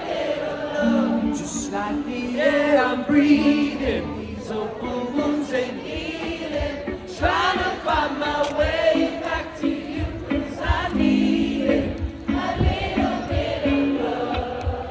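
Live band playing a song with many voices singing along, heard from among a large concert crowd.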